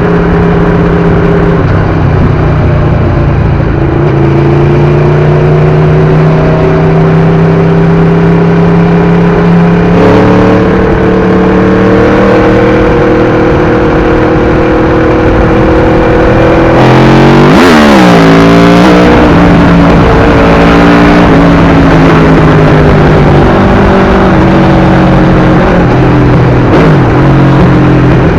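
Aprilia RSV4 RR's 1000cc V4 engine through an SC-Project exhaust, running under way at a steady pace with its note climbing slowly and stepping about ten seconds in. Around seventeen seconds in a louder passage with pitches sweeping sharply up and down cuts across it, then the steady engine note resumes. Wind rumbles over the action camera's microphone.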